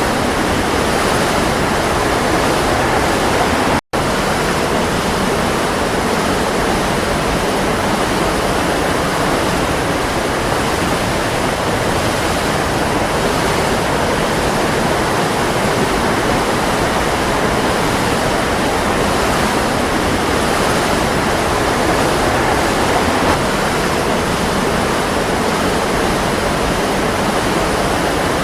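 Waterfall: a steady, full rush of falling water, cut off for an instant about four seconds in.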